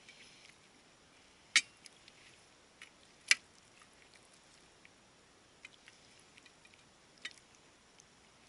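A metal ladle clinking against a roasting pan while juices are scooped out: two sharp clinks about a second and a half apart, a lighter one later, and small taps and scrapes between them.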